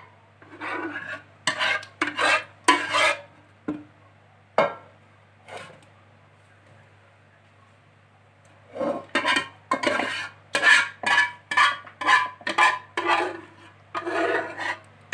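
Spoon scraping and spreading thick béchamel sauce in a glass Pyrex dish, in repeated short rasping strokes. There is a short pause about halfway through, then a quick run of about two strokes a second.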